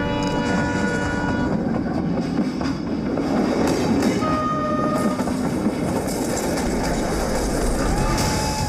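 Train running on the rails: a steady rumble with wheel clatter over the track, some held tones sounding over it at the start.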